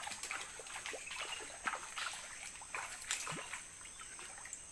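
Light, irregular splashing and dripping of water as a freshly hooked baung catfish is brought up out of the river.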